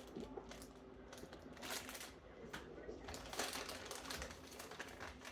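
Ninja Pods & Grounds coffee maker brewing a cup from grounds: faint, irregular crackling and clicking over a low hum.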